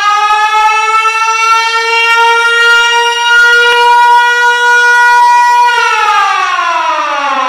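Air-raid-style siren holding one loud, steady wailing tone, then winding down in pitch from about six seconds in.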